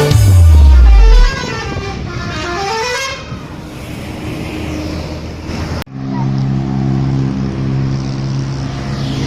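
Bus 'telolet' multi-tone horn playing a melody of stepped notes that fall and then climb back up. It opens with a loud low tone sliding down. After a sudden cut about six seconds in, several low tones are held steadily together.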